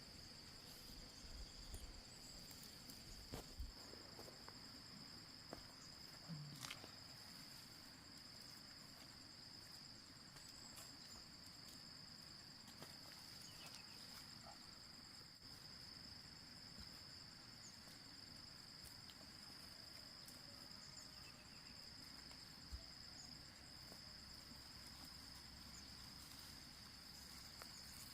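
Insects chirring in one steady, high-pitched drone, faint, with a few soft clicks.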